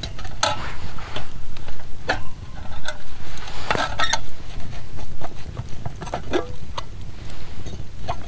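Wood campfire crackling, with irregular sharp snaps and pops over a steady low rumble.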